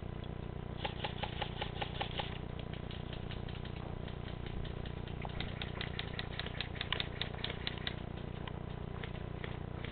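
Airsoft gun firing in two strings of rapid, evenly spaced clicking shots, one about a second in and a longer one in the second half, over a steady low rumble.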